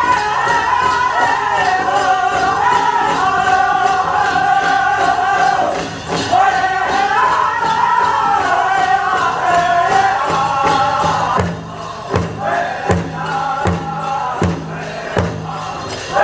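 A powwow drum group sings a Prairie Chicken dance song in high voices over a big drum, with dancers' bells jingling. About eleven seconds in, the singing drops away and roughly six hard, evenly spaced drum strokes stand out, a little over one a second.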